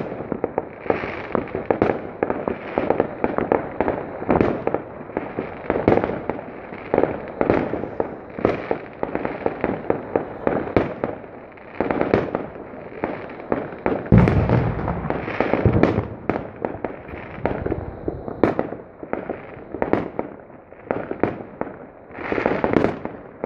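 Fireworks going off: many bangs and crackles in quick succession, with one louder, deeper boom about fourteen seconds in.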